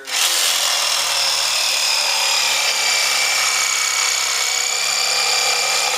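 A power tool running steadily, starting and stopping abruptly, with a steady motor whine over a loud hiss.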